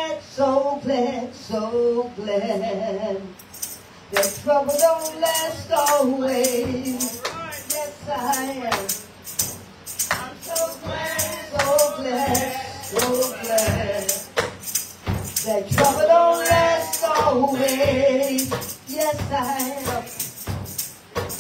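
A woman singing a gospel song into a microphone. About three seconds in, a steady beat of jingling hand percussion joins her.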